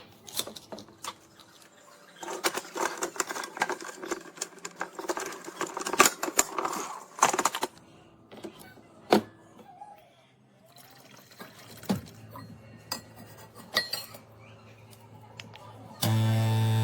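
Irregular clicks and clattering of objects being handled, densest for several seconds early in the stretch, then sparser clicks over a low hum. Near the end a loud steady hum with a fixed pitch starts abruptly.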